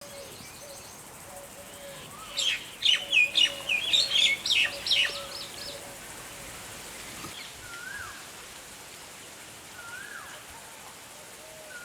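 Birdsong outdoors: a burst of rapid, high chirping from about two and a half seconds in to about six seconds, then only a few faint, scattered whistled calls. Faint short calls repeat quietly underneath.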